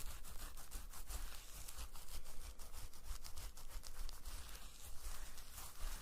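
Close-miked ASMR trigger sound: rapid, irregular crisp scratching and crackling clicks.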